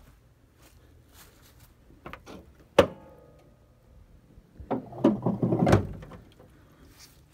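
A single sharp metallic clunk that rings briefly, then a cluster of clunks and creaks as the truck's steel hood is unlatched and raised.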